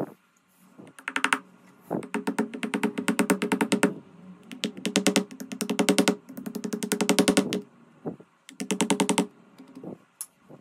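Rapid light hammer taps on a plastic casting pattern bedded in moulding sand, in several quick runs of roughly ten taps a second with short pauses between them.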